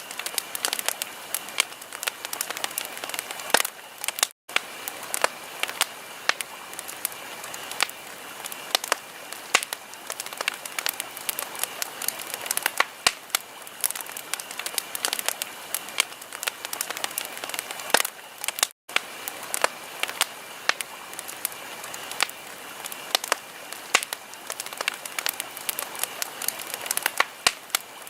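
Wood fire in a fireplace crackling, with many irregular sharp pops and snaps over a steady hiss. The sound cuts out for an instant twice.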